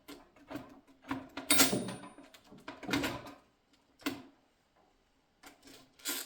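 Carriage of a Stoewer Portable typewriter being slid and clicked back onto the machine: a run of metal clicks, knocks and scraping slides, loudest about one and a half seconds in, then a pause and a few more clacks near the end.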